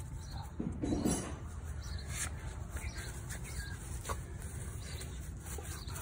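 A puppy giving a brief squeaky whimper about a second in, over a steady low rumble.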